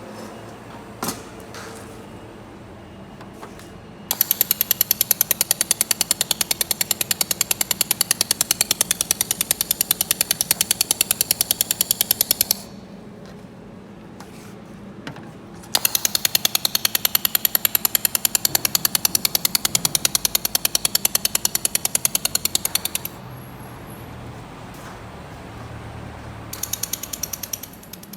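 Laser welding machine welding thin steel sheet: two long runs of fast, evenly spaced crackling pulses, about ten a second, then a brief third run near the end.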